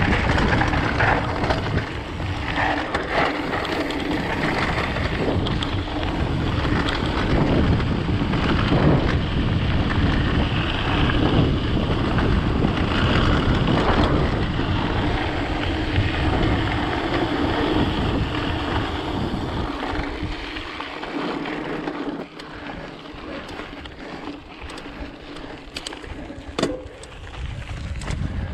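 Wind buffeting the microphone over the rumble and rattle of a mountain bike riding fast on a rough dirt trail. About three-quarters of the way through, the low rumble drops off and it gets quieter, with a single sharp knock near the end.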